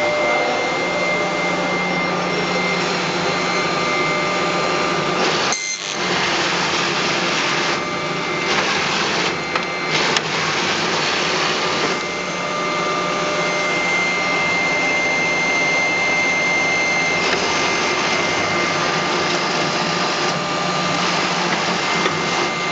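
JBB51C perfect binding machine running: a steady mechanical din with a constant whine, briefly dropping out about six seconds in, with a few short knocks a couple of seconds later.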